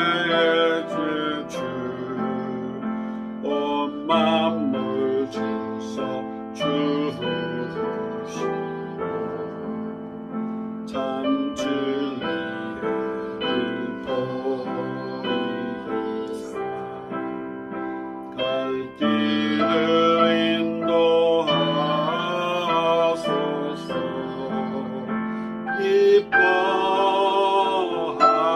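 A slow hymn sung by a man, with piano accompaniment and long notes held with vibrato.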